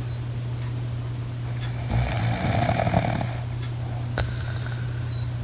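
A sleeping woman snoring: one long, rasping snore about two seconds in, lasting about a second and a half, over a steady low hum.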